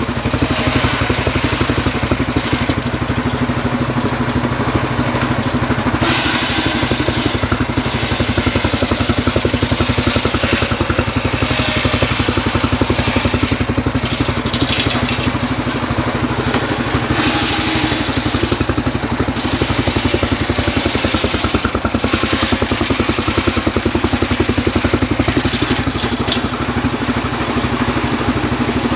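A homemade engine-driven table circular saw running steadily as a rain tree log is fed through the blade. The engine's even chugging runs under the blade's high cutting noise, which swells and eases several times as the log advances.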